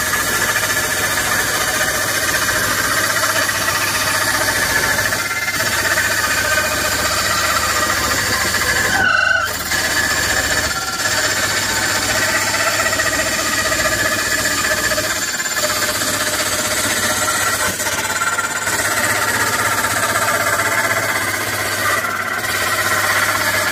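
Bench-mounted electric woodworking cutter running at speed as a wooden board is pushed across its blade, a steady high-pitched whine over a low hum. It falters briefly a little past halfway.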